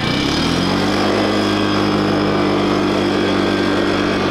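A Ranger side-by-side UTV's engine revs up hard over about the first second, then holds at steady high revs as the machine pulls a stuck ice-fishing trailer free through the snow, its tyres spinning.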